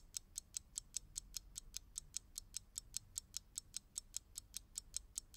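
Faint, rapid clock-like ticking sound effect, even and about five ticks a second.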